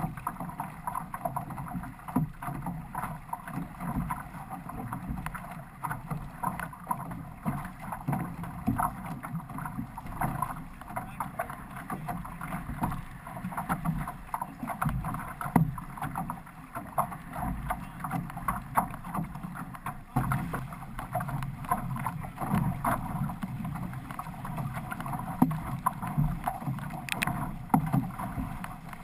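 Outrigger canoe under way: paddle blades repeatedly catching and splashing in the water, over a continuous wash of water rushing past the hull and outrigger float.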